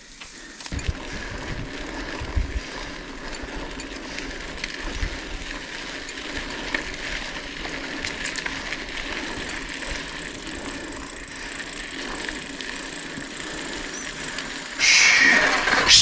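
Mountain bike rolling along a dirt road: a steady noise of tyres on gravel with a constant rattle of small clicks and knocks. About fifteen seconds in there is a sudden, louder burst of noise.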